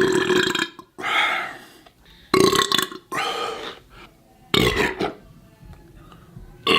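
A man belching loudly several times in quick succession, about five burps each under a second long.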